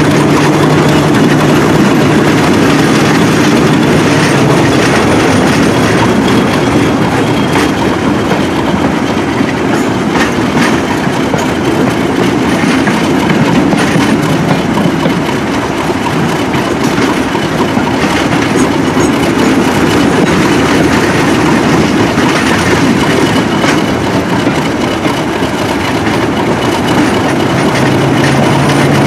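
Diesel locomotive working hard at the head of a train, heard from a carriage window just behind it, with wheels clattering over the rails. Its steady low engine note drops away about four seconds in and comes back near the end.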